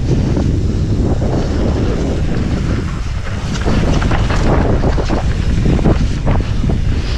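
Wind buffeting the microphone while a mountain bike is ridden along a trail, with scattered knocks and rattles from the bike over rough ground.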